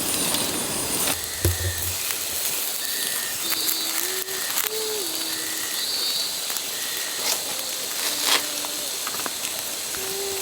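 Barbecue fire and grill hissing steadily, with scattered crackles and clicks. A faint wavering tone rises and falls a few times.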